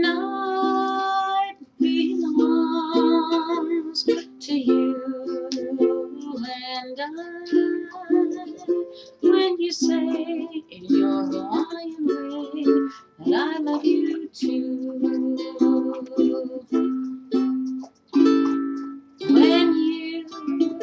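Ukulele strummed in chords, an instrumental passage with the chords changing every second or so and no singing.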